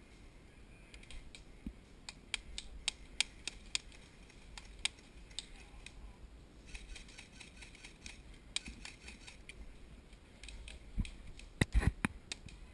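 Airsoft guns firing: a string of sharp, snapping single shots spaced irregularly, a quick run of shots a little after the middle, and a louder cluster of knocks near the end.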